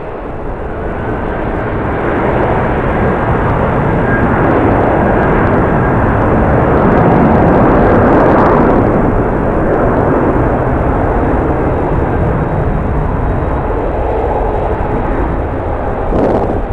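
Jet airliner passing the airport, its engine noise swelling to a peak about eight seconds in and then slowly fading, with a faint steady whine early on. Strong wind buffets the microphone throughout.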